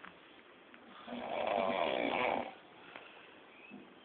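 A drunk man snoring heavily: one long snore about a second in, lasting about a second and a half, with quiet breathing before and after.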